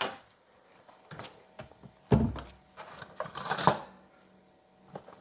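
Kitchen utensils and cookware being handled: a few light clicks, a knock with a low thud about two seconds in, then a short clatter about a second later.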